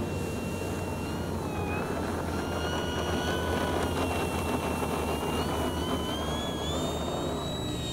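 Electric motor and propeller of a foam RC P-51D Mustang model whining on a takeoff roll from grass. The pitch dips briefly about two seconds in, then climbs in steps as the throttle comes up and the plane lifts off, over a steady rushing noise.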